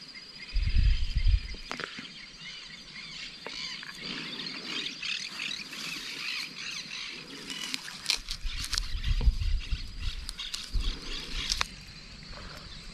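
Chattering birds and a high, evenly ticking insect trill in the background, with several sharp clicks and deep bumps of handling noise close to the microphone, about a second in and again toward the end.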